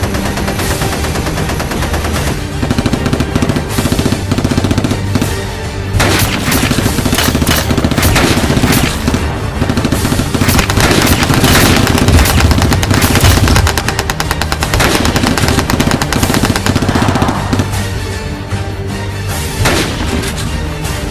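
Rapid machine-gun and rifle fire sound effects, densest from about six to fourteen seconds in, over background music.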